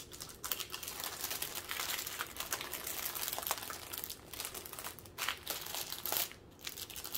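Plastic packaging of a diamond-painting kit crinkling and rustling as it is handled: the sleeve of drill bags and the plastic film over the canvas. It is a quiet stream of small crackles with a brief lull near the end.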